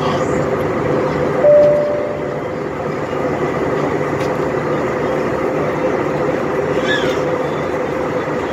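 Steady airliner cabin noise in flight: the jet engines and airflow make an even, unbroken noise with a low steady hum. About a second and a half in, a short single tone sounds briefly over it.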